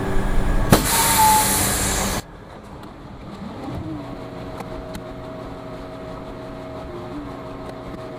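A loud hiss for about two seconds that cuts off suddenly. It is followed by the concrete mixer truck's diesel engine running steadily, a low drone whose pitch dips briefly twice.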